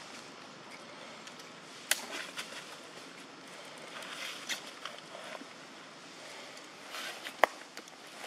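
Dry leaf litter rustling and crackling in scattered short bursts as macaques move and forage over it, with one sharp click near the end.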